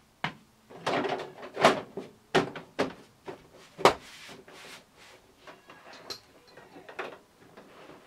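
Hard plastic and metal parts of an LCD TV being handled and set in place during reassembly: a series of knocks and clatters, loudest in the first four seconds, then fainter handling.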